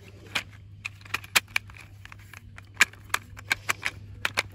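Hard plastic halves of a toy bullet train being pressed and snapped together by hand: a run of irregular sharp clicks and knocks, the loudest about a second and a half in and near three seconds in.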